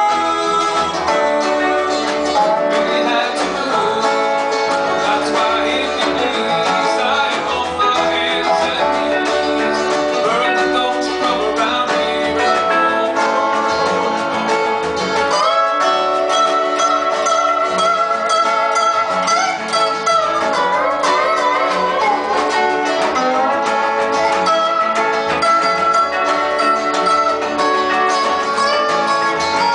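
Live country-rock band playing a song on acoustic guitars, dobro, banjo, bass and drums, at a steady full level.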